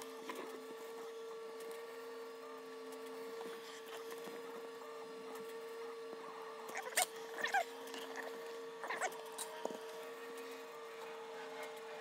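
Hand soldering of fine wires: a faint steady hum at one pitch, with a few light clicks and rustles from the iron, solder and wires being handled about halfway through and again a couple of seconds later.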